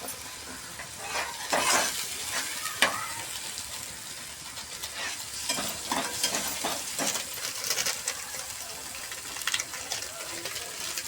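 Onion-tomato masala sizzling in a frying pan while a spoon stirs it, with a few scattered scraping strokes against the pan.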